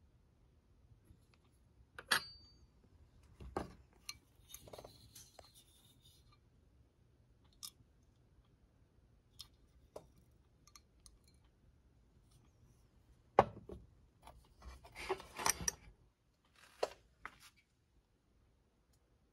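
Brass parts of an SVEA No.100 stove being handled: scattered clicks and knocks of metal, one with a brief metallic ring about two seconds in, and the loudest knock a little past halfway, followed by about a second of rubbing and scraping and a couple more clicks.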